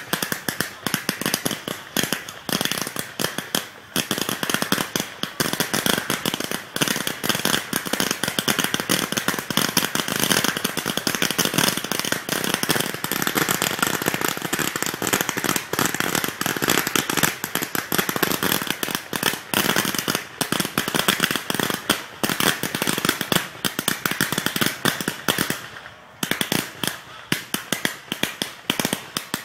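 Fireworks firing in a dense, rapid barrage of bangs and crackling, with columns of sparks shooting up from ground tubes. The barrage thins out to scattered bangs over the last few seconds.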